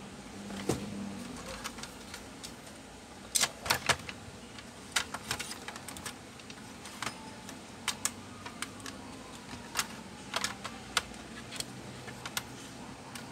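Irregular sharp clicks and clacks of plastic and metal laptop parts being handled, as the optical drive in its metal caddy is fitted into the laptop's drive bay.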